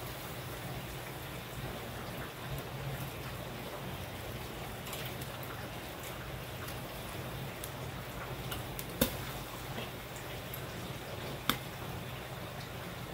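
Chicken, burger patties and hot dogs sizzling and crackling over charcoal on a kettle grill. Two sharp clacks of metal tongs stand out, one just past the middle and one near the end.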